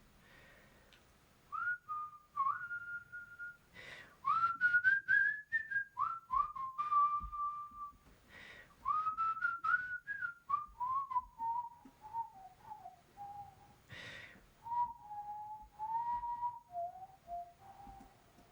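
A whistled tune: a single clear tone in short sliding notes, starting high and wandering gradually lower in pitch. Short noisy clicks fall between the phrases.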